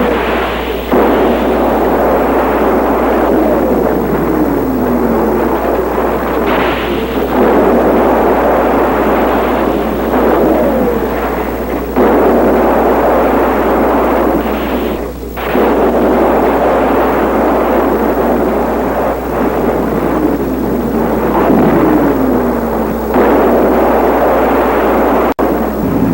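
Electronic science-fiction sound effect of explosive destruction: a loud, continuous rushing roar that surges suddenly every few seconds, with falling whistling tones gliding down now and then.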